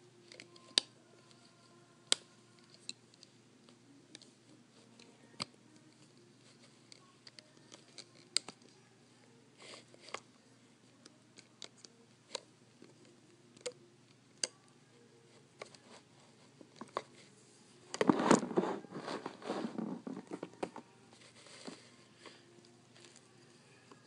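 Small sharp clicks and ticks of a hook and rubber bands working against the pegs of a Rainbow Loom, a few seconds apart. About eighteen seconds in comes a louder spell of rustling and handling noise lasting some three seconds.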